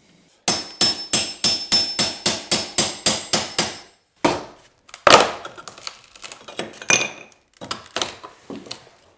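Hammer rapidly striking a steel pry bar wedged under the tile of a shower curb: a quick, even run of ringing metal-on-metal blows, about five a second, for about three seconds. Then a few heavier blows, the loudest about five seconds in, and scattered knocks as the curb tile breaks loose from its spot-set mortar.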